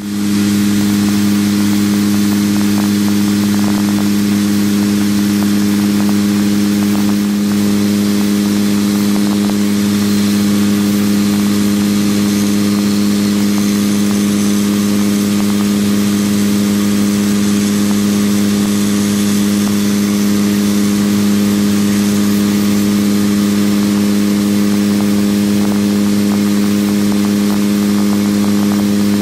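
Cabin sound of a C-27J Spartan in flight, heard close to the propeller: its turboprop engines and six-bladed propellers drone with a steady, deep hum that does not change.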